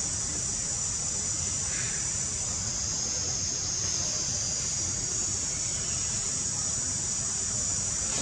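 Steady, high-pitched drone of an insect chorus, with a low rumble underneath.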